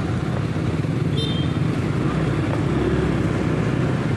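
Street traffic: cars and motorcycles running along a town road, a steady rumble of engines and tyres, with one brief high-pitched tone about a second in.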